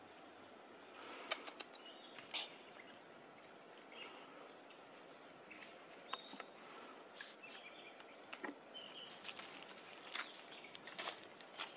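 Faint forest ambience: a steady high insect drone, with scattered sharp crackles and rustles like dry leaves and twigs being stepped on or brushed, and a few brief bird chirps.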